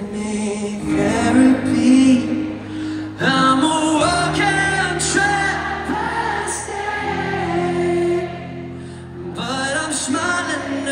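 Live rock band playing a slow ballad: singing with long held notes over guitar and a steady bass, heard from among the audience in a large arena.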